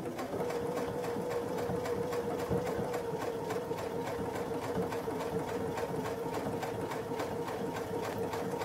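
Electric sewing machine stitching a straight seam slowly and steadily through several layers of towel and fabric: an even motor hum with a regular ticking of the needle, starting up just after the beginning.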